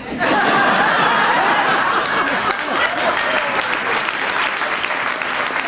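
Audience applauding and laughing, breaking out all at once right after a punchline and easing a little towards the end.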